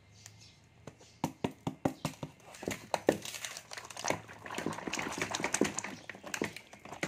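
Plastic toy dinosaurs and ice being handled in a plastic tub: a run of sharp clicks and knocks starting about a second in, turning into a denser clatter of small ticks in the second half.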